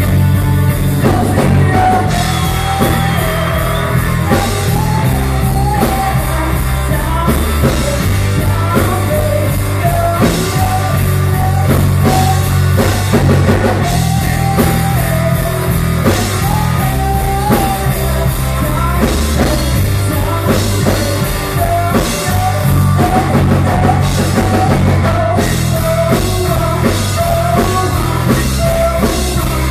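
Live rock band playing: a singer at a microphone over two electric guitars and a drum kit, with a heavy low end.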